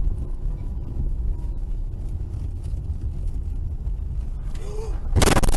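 Car cabin noise picked up by a dashcam: a steady low engine and road rumble. A little over five seconds in, a sudden loud rushing, scraping noise sets in and keeps going.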